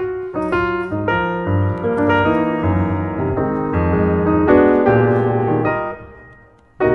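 Background piano music: a run of piano notes and chords that dies away about six seconds in, with a new chord struck right at the end.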